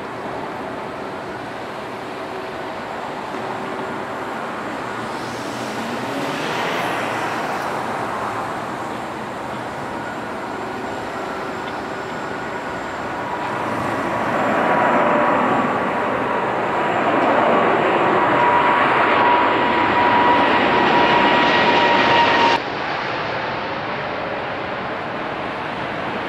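Boeing 787's twin jet engines at takeoff power as it lifts off and climbs overhead: a steady jet noise with a high whine, growing louder about halfway through and cutting off abruptly near the end.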